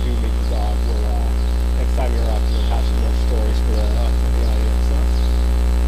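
Loud, steady low electrical mains hum on the audio line.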